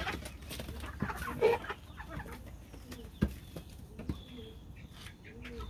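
Chickens clucking, with short low clucks repeating in the second half, mixed with a few sharp knocks and scuffs. The loudest of these is about three seconds in.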